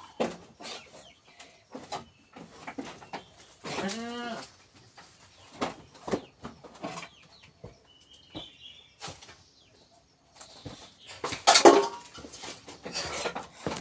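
A goat bleats once, a wavering call about four seconds in, among scattered knocks and rustling from animals moving in the pen; a burst of loud rustling comes near the end.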